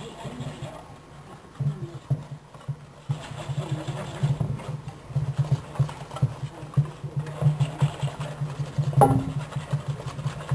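Cornbread batter being mixed in a bowl to work the lumps out: a steady, rapidly pulsing low churning that runs on after a quieter first second or so.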